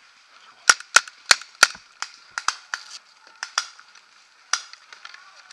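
Paintball markers firing: four loud, sharp shots in quick succession about a second in, then scattered fainter shots through the rest of the stretch.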